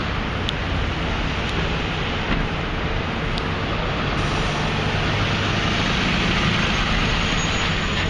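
Steady street traffic and vehicle engine noise, with a low engine hum growing louder in the second half. Two short sharp clicks, about half a second in and again past the three-second mark.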